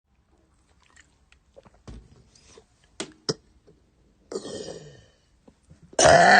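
A woman gulping air with small mouth clicks, then a short burp falling in pitch about four seconds in. Near the end she lets out a loud, long burp.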